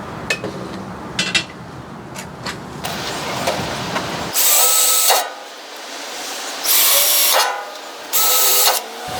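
Power drill boring pilot holes in a steel bracket: a few handling clicks, then the drill runs in three short bursts of about a second each in the second half.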